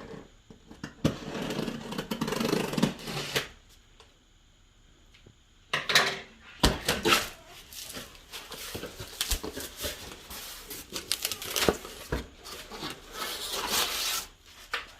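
Rustling and scattered knocks and clicks of objects being handled, with a sharp cluster of clicks about six seconds in.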